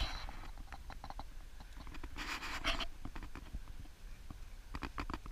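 A pack of dogs moving about on a dirt trail: scattered footfalls and small clicks, with a short breathy huff or pant a little over two seconds in.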